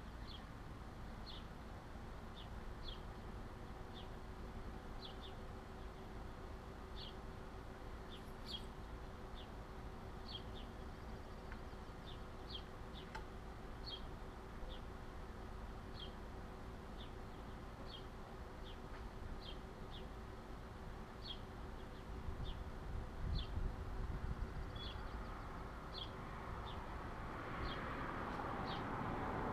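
A small bird chirping over and over, one short high note about every second, over a low steady rumble. A broad rush of noise swells near the end.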